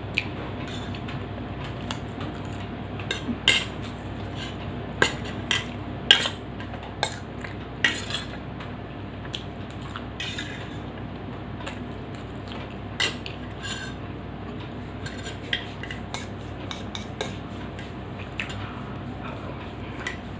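Cutlery clinking and scraping against a plate of macaroni while eating, in irregular sharp taps, most frequent in the first half.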